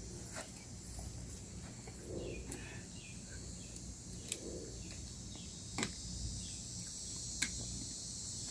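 Steady high-pitched chorus of insects in the woods, with a few short sharp clicks partway through.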